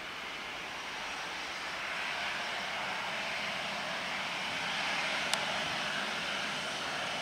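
Boeing 737-800's CFM56-7B jet engines running at taxi power as the airliner taxis by, a steady rushing hiss that grows a little louder as it comes closer. A single sharp click about five seconds in.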